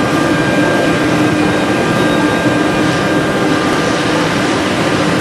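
Several high-speed router spindles on a CNC tenoning machine running and cutting into wood: a loud, steady machine noise with a few held whining tones over a dense hiss.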